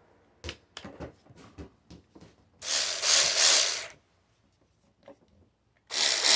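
Cordless 3/8-inch ratchet run in two short trigger bursts, its motor and gears whirring for about a second and a half near the middle and again for about a second near the end, after a few light clicks of handling.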